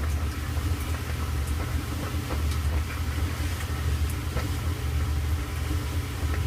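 Kenmore Elite clothes dryer running in its steam refresh cycle: a steady low hum with a few faint scattered ticks.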